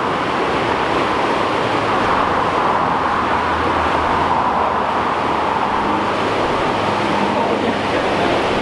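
Steady rush of turbulent canal water churning and foaming under a bridge.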